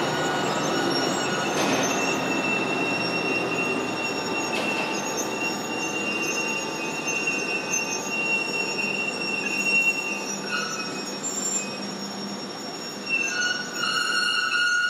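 Flat wagons of a Rhaetian Railway track-works train rolling slowly past on metre-gauge track, their wheels squealing in several steady high tones over the rumble of rolling. A louder squeal sets in near the end.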